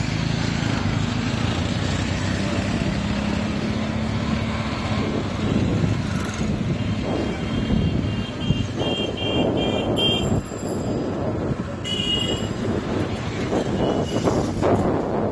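TVS Sport motorcycle's single-cylinder engine running steadily while riding through street traffic, with runs of short, high-pitched beeps about halfway through and again a little later.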